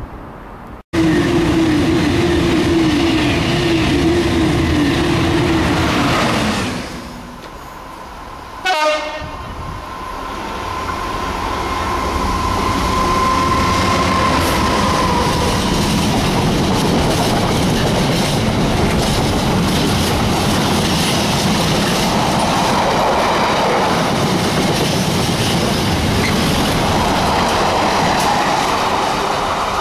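A train horn sounds one long steady note for about five seconds. After a break, a Freightliner Class 66 diesel locomotive passes close by hauling a long container freight train, with the engine running and the wagons clattering steadily over the track.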